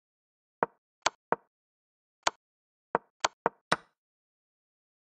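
Digital chess move sounds from an online chess board: about eight short, sharp clicks of pieces being placed, irregularly spaced and bunched closer together near the end, where the last click is a little longer.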